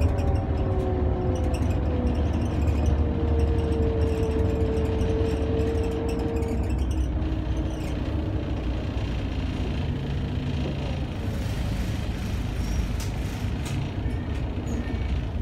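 Mercedes-Benz O405 city bus driving, heard from inside the passenger saloon: its rear-mounted OM447h horizontal six-cylinder diesel running through a ZF 4HP500 automatic gearbox, a low steady rumble. A whine dips slightly in pitch, holds, and fades out about seven seconds in.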